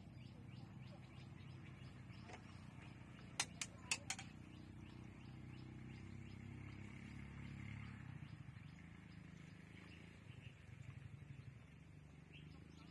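Faint outdoor quiet with faint bird chirps and a low steady hum. About three and a half seconds in come four sharp clicks in quick succession.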